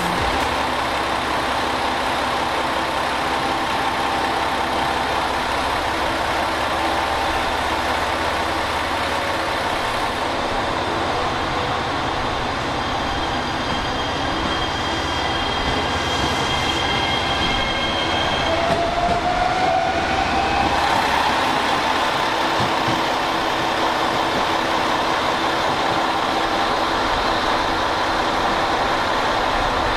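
JR Shikoku 7200 series electric train pulling out: the traction motors' whine climbs slowly in pitch as it accelerates, over the steady rumble of the moving train.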